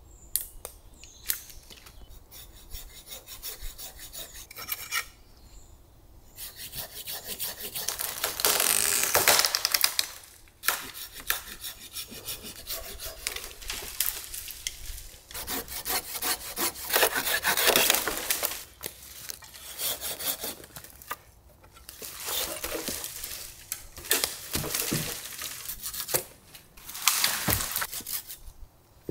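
Hand pruning saw cutting through thin wooden poles and logs with quick back-and-forth rasping strokes, in several bouts separated by short pauses.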